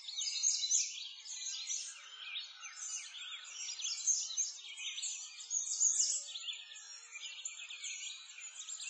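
Dense chorus of many small songbirds chirping and twittering continuously, with overlapping high-pitched quick chirps.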